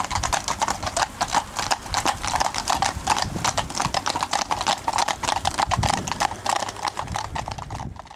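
Horses' hooves clip-clopping, many strikes overlapping in a fast irregular clatter from a group of horses on the move; it cuts off abruptly near the end.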